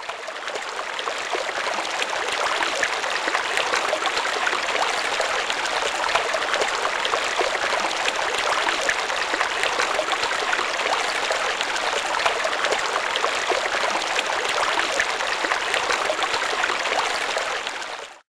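Steady rush of running water with a fine crackle, fading in over the first two seconds and stopping abruptly at the end.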